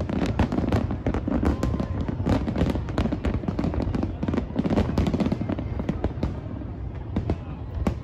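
Aerial fireworks display: many overlapping bangs of shells bursting in quick succession over a steady low rumble, easing slightly after about six seconds.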